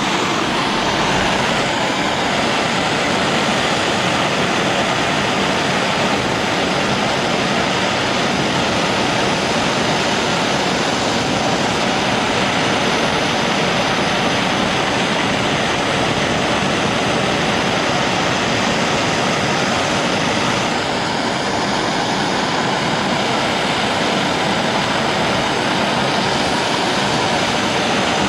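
Heat gun blowing steadily, a continuous rushing hiss with a faint motor whine, as it heats freshly painted wrenches to cure the coating. Its tone shifts slightly about three quarters of the way through.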